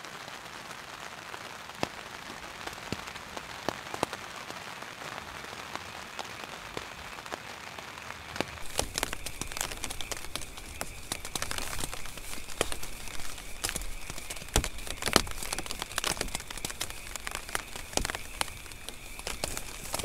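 A steady soft hiss, then from about eight seconds in many sharp crinkles and taps as nylon stuff sacks and down clothing are handled inside a tent.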